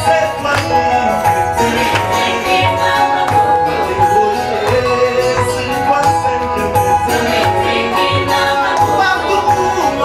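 Upbeat Congolese gospel music with a steady beat: an instrumental passage without singing.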